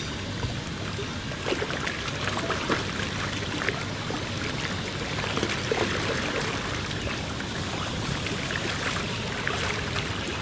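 Many large fish splashing and churning at a pond's surface in a feeding frenzy over bread: a steady wash of water broken by many small slaps and splashes.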